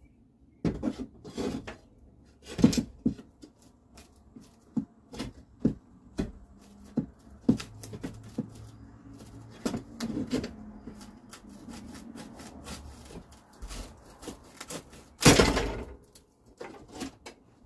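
Blade of a military shovel used as a pry bar, working at wooden ceiling boards and trim: a string of scrapes, creaks and knocks of wood and metal. About fifteen seconds in comes the loudest sound, a short rasping burst.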